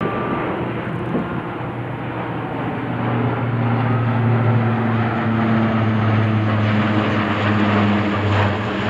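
Propeller-driven military transport plane droning overhead as it drops paratroopers, a steady low hum that grows louder about three seconds in.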